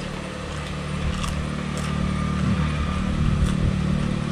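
A motor vehicle's engine running close by, its hum growing louder over the first few seconds, with a few light clicks over it.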